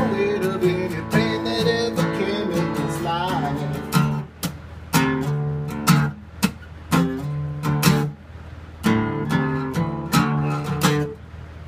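Acoustic guitar playing the closing bars of a song. A sung line trails off over strummed chords in the first few seconds, then comes a run of short, clipped chord strums with brief gaps between them, and a final chord dies away near the end.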